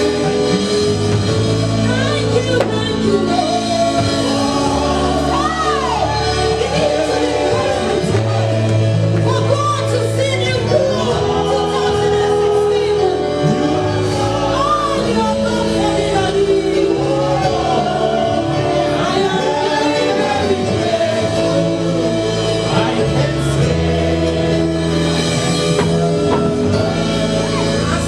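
Gospel song performed live with singing over steady accompaniment in a large room.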